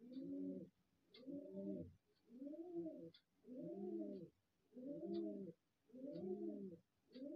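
A pigeon cooing over and over, a low arched coo about once a second in an even rhythm.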